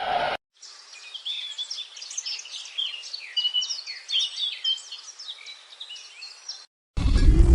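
Several small birds chirping and twittering in quick, high, overlapping calls. Near the end a loud farm-animal bleat begins.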